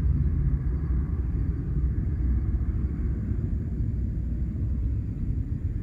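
Low, steady rumble from the sky, a vibrating drone that swells and fades irregularly without stopping. Its source is unidentified; the recorder insists it is not an airplane.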